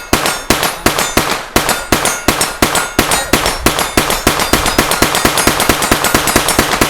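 Rapid semi-automatic gunfire: a long unbroken string of shots that speeds up from about three to five or six a second.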